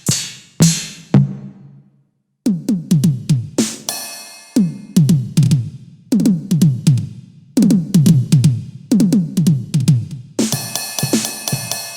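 Millenium MPS-150 electronic drum kit played through its sound module: quick tom fills whose pitch drops on each hit, a brief pause about two seconds in, a cymbal crash about four seconds in, and a continuous cymbal wash near the end.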